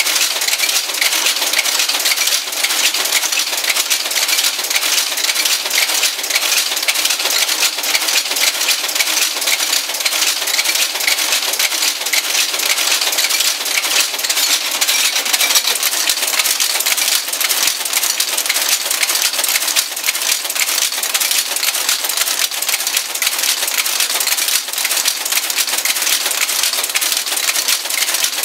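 Monotype composition caster, fed by the Welliver computer interface, running steadily while it casts type: a fast, continuous metallic clatter of many small clicks and rattles.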